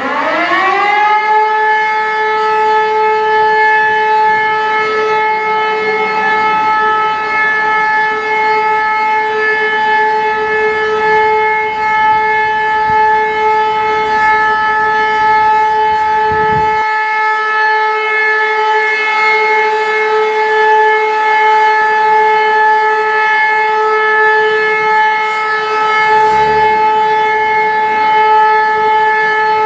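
Civil-defence warning siren winding up within about a second, then sounding one loud, steady, continuous tone. This unbroken tone is the pattern German test alarms use for the all-clear signal (Entwarnung).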